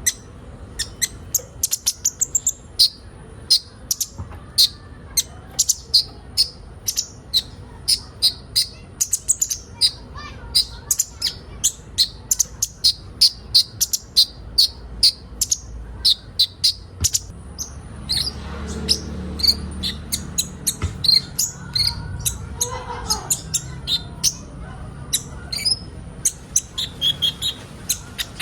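A chorus of sunbirds (kolibri ninja) chirping fast: short, sharp, high-pitched notes, several a second, overlapping one another.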